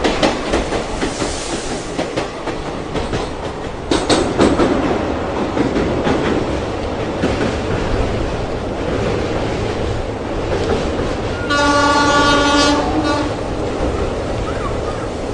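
A moving train rumbling along with wheels clacking over the rails, and about two-thirds of the way through its horn sounds once for about a second and a half.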